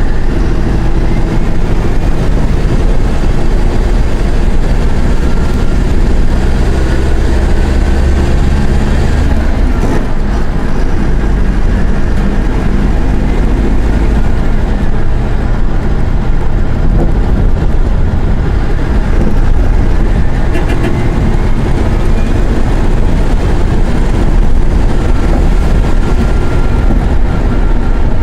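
Mercedes-Benz OF-1418 bus's inline-six diesel engine running hard while the bus is driven. The engine note breaks and changes about ten seconds in, and shifts again later on.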